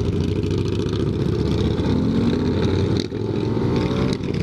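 Honda Grom's small single-cylinder engine running under the rider as it moves along with a group of motorcycles, heard from a helmet camera with wind noise. The engine note rises in the middle and drops briefly twice, about three and four seconds in.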